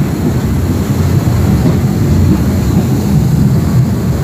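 KA Sri Lelawangsa local passenger train running, heard from inside the carriage as a loud, steady, low running noise.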